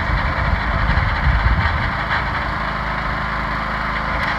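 40-ton hydraulic log splitter with its engine running steadily while the ram drives a round of firewood through the splitting wedge.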